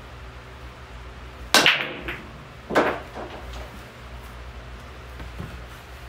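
Nine-ball break shot on a pool table. A loud crack comes about a second and a half in as the cue ball smashes into the rack, then a second loud clack about a second later and a few lighter clicks as the balls scatter. A steady fan hum runs underneath.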